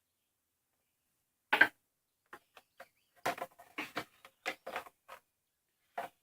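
Irregular clicks and knocks from handling a chop saw and its parts. The loudest comes about a second and a half in, and lighter ones follow in a scattered run.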